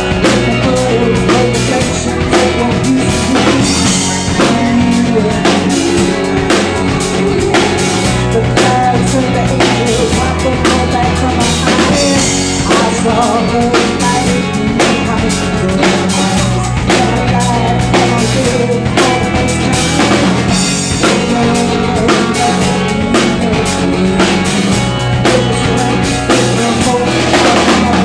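Live rock band playing a song: drum kit with bass drum and snare, electric bass and guitar, with a woman singing into a microphone.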